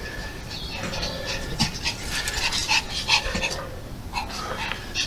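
A small dog panting hard with quick, uneven breaths.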